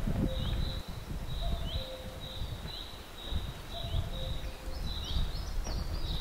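Outdoor ambience: a short high chirp repeated about two to three times a second, with a fainter, lower tone every second or so, over an uneven low rumbling noise.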